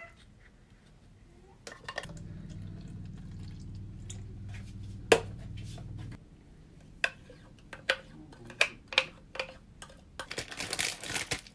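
Kitchen handling sounds: a wooden spoon and a plastic blender cup tapping and clicking, the sharpest click about five seconds in, with a low steady hum from about two to six seconds. Near the end a thick smoothie is poured from the blender cup into a glass and scraped out with the spoon.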